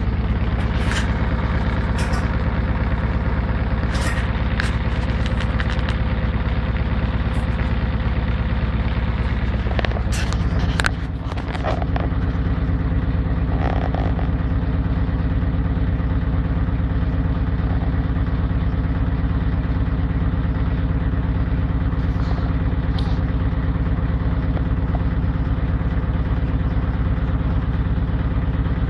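Servis Gem M310 washing machine spinning a bedding load: the motor and drum run steadily with a few knocks and rattles, and about 11 seconds in the motor note briefly dips and shifts as the drum speed changes. The load is somewhat out of balance, so the machine is shaking during the spin.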